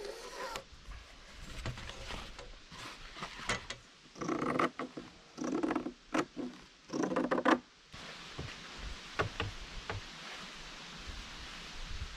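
Scissors cutting through heavy canvas fabric: three crunching cuts, each about half a second, in the middle of the stretch, with fabric rustling and small clicks around them.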